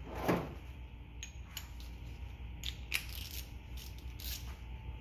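Light metallic clicks and clinks of small screws and a screwdriver against the metal recoil starter housing of a small outboard. A knock comes just after the start, then single clicks a second or so apart.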